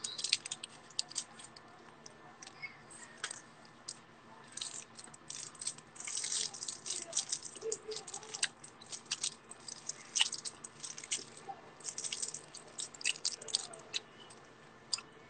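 Faint, irregular clicks and crackles close to a phone's microphone, coming in scattered clusters, with no speech.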